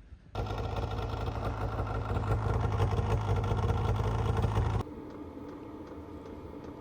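An engine running steadily with a low rumble, starting suddenly and cutting off abruptly about five seconds in, leaving a quieter steady hum.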